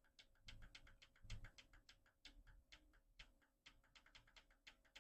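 Near silence with faint, irregular light clicks, several a second, and a couple of soft low thuds in the first second and a half.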